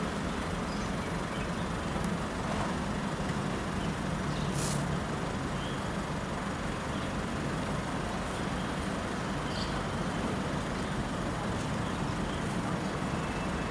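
A parked vehicle's engine idling with a steady low hum, with a few faint short high chirps over it.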